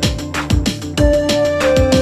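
Electronic background music with a steady drum beat and held synth notes.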